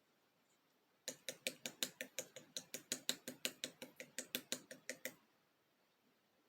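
Black slime being squeezed and pressed by hand, giving a rapid, even run of crisp pops and clicks, about five a second. They start about a second in and stop after about four seconds.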